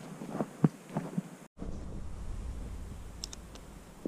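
Footsteps: a few soft thuds, then, after a brief cut in the sound, a steady low rumble.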